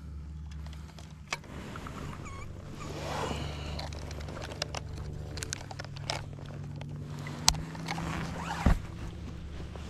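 Handling noise as a digital fish scale's metal clip is hooked onto a bass in a landing net: rustling, and a few sharp clicks, the loudest near the end, over a steady low hum.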